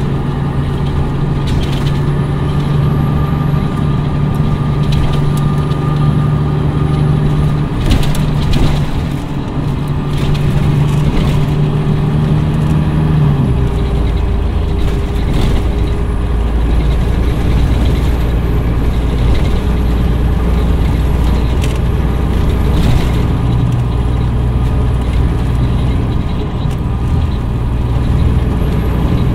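Cummins ISM inline-six diesel of a 2011 MCI D4505 coach running steadily, likely at idle; about halfway through its note drops to a lower, heavier hum. A few short sharp sounds punctuate it.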